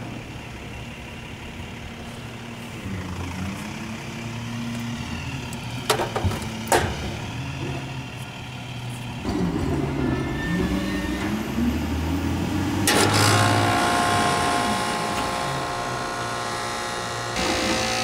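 Outdoor AC condenser unit restarting with a freshly replaced run capacitor: a steady buzzing hum builds about nine seconds in and grows stronger about thirteen seconds in, with a couple of sharp knocks before it about six seconds in. The unit starts but its condenser fan still does not run, because the fault is a bad fan motor and not the capacitor.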